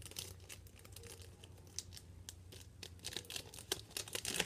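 Foil AFL Teamcoach trading-card pack wrappers crinkling and cards being handled, in irregular crackles that grow busier near the end.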